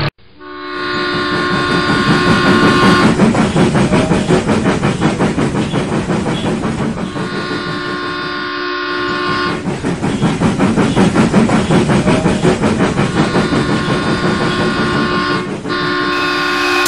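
Steam train sound starting suddenly, a fast steady rhythm of chuffing or wheel clatter running throughout, with a multi-tone whistle sounding in four long blasts.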